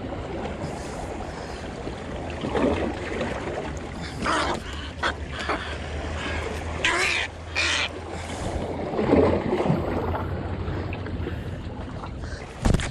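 Several short, harsh squawks from a white egret that is caught on a fishing line and being handled, over a steady low rumble of wind and water.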